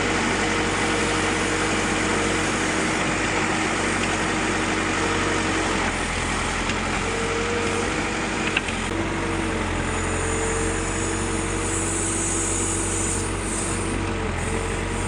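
Backhoe loader's diesel engine running steadily, its pitch dipping and recovering a few times as it takes load. One short sharp click about eight and a half seconds in.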